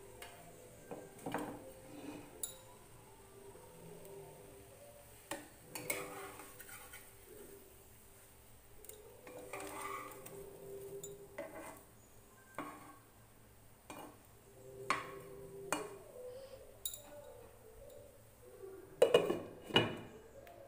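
A metal spatula tapping and scraping in a non-stick frying pan as bread slices are turned, with clinks of a glass pan lid. The loudest knocks, near the end, come as the glass lid is set back on the pan.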